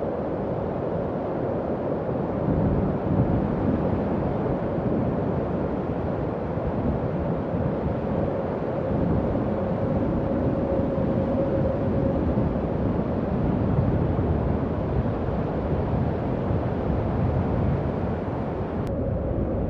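Howling wind sound effect for horror: a steady, low rushing gust with a faint held whistling tone that swells for a few seconds midway. A faint click near the end.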